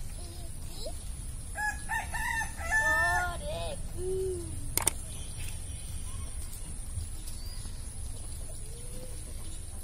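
A rooster crows once, starting about one and a half seconds in and lasting about two seconds, followed by a short falling call. A sharp click comes about five seconds in, over a steady low rumble.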